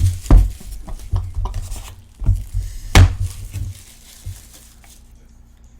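Cardboard trading-card box being handled on a table: several sharp knocks and thumps with rustling, the loudest about a third of a second and three seconds in. It settles after about four seconds.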